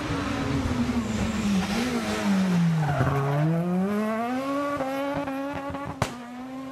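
Rally car engine slowing into a corner, its pitch falling, then accelerating hard out of it with the revs climbing and levelling off. A single sharp crack about six seconds in.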